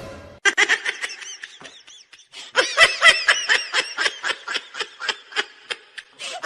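High-pitched laughter in a rapid run of short giggles, pausing briefly about two seconds in and then going on in quick bursts.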